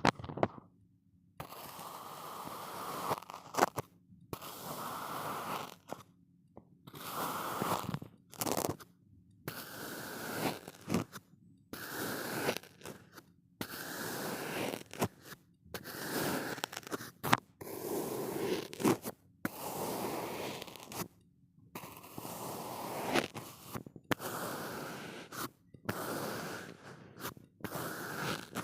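Kinetic sand crunching and scraping in a series of separate strokes, roughly one every one to two seconds, with short silences between them and an occasional sharp click.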